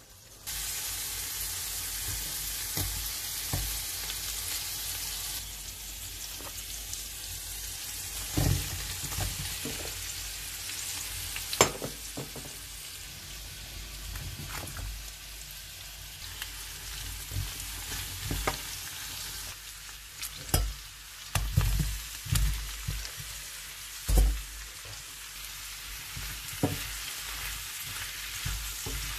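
Food sizzling with a steady hiss while a spatula stirs, scraping and knocking against the pot and pan now and then.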